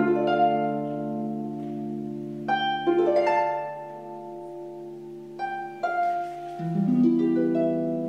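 Concert harp played solo: a loud plucked chord at the start left to ring, then further plucked notes and chords entering from about two and a half seconds in, with lower notes joining near the end.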